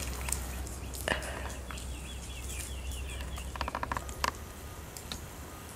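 Outdoor tree-canopy sounds: a bird warbling for a couple of seconds near the middle, scattered sharp clicks and scratches, and a quick rattle of about eight clicks a little past halfway. A low rumble sits underneath and fades partway through.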